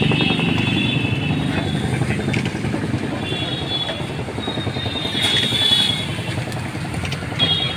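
Roadside traffic with motorcycle engines running, over which a metal spatula scrapes and clinks against a large flat iron griddle (tawa) as chowmein noodles are tossed and turned.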